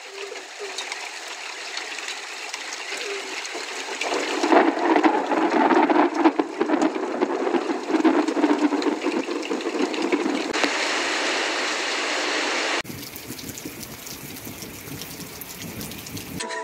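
Heavy rain and storm noise: a steady hiss that swells louder partway through, then cuts abruptly to a quieter, duller hiss near the end.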